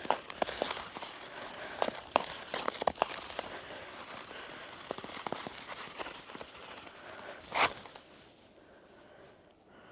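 Ice skates crunching and scraping through fresh snow on pond ice, with a run of sharp crackles. A single louder scrape comes near the end, then the sound eases off.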